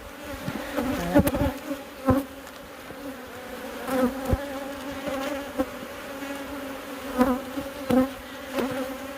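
Honeybees buzzing around an opened hive: a steady, low hum from many bees. Several sharp knocks and clicks sound over it.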